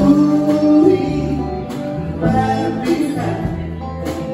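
Live band playing: electric guitar, acoustic guitar, bass guitar and drum kit together, with a held guitar note that bends upward about a second in.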